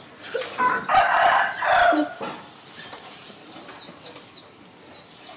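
Rooster crowing: one long crow about a second in, lasting just over a second.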